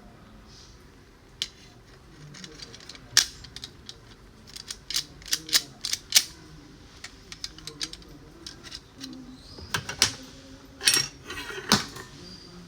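Sharp, irregular metal clicks and clinks from a door handle and mortise lock body being handled, coming in two clusters.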